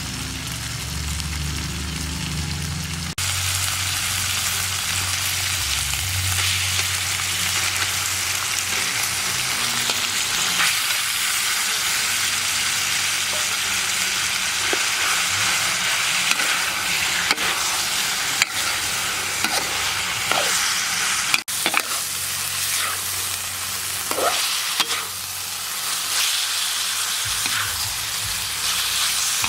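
Eggplant and pork sizzling as they stir-fry in a pan, a dense steady hiss while being stirred, with occasional sharp knocks in the second half. A low steady hum underneath cuts off abruptly about three seconds in.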